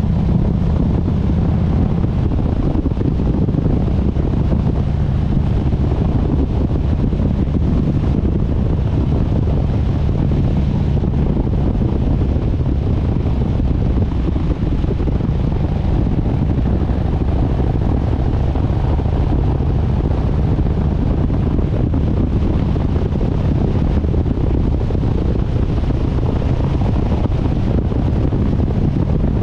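Harley-Davidson Sportster S motorcycle running steadily at road speed, its Revolution Max 1250T V-twin engine holding an even note while wind buffets the microphone.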